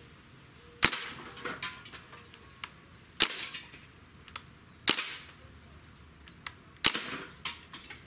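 A Crosman Bushmaster MPW CO2 blowback BB rifle firing single shots, four sharp pops about two seconds apart. Each shot is followed by a few lighter clicks.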